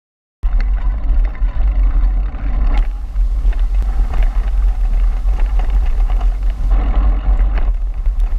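Mountain bike rolling down a dirt singletrack: heavy wind rumble on the microphone, with tyre noise on the dirt and short clicks and rattles from the bike. It starts suddenly about half a second in.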